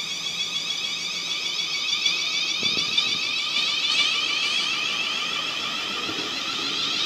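South West Trains class 450 Desiro electric multiple unit pulling away, its electric traction motors and inverters giving a high, multi-toned whine as it accelerates past, slowly growing louder.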